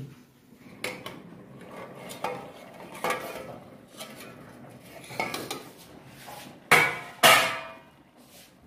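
Steel plate used as a lid on a kadhai of simmering chicken mince, knocking lightly a few times and then clanking loudly twice about seven seconds in as it is handled and lifted off the pan.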